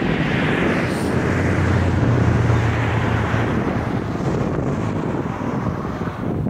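Airbus A330 jet airliner's engines rumbling as it flies low past the runway edge to land and draws away, the deep rumble strongest a second or two in and easing slightly toward the end. Wind buffets the microphone throughout.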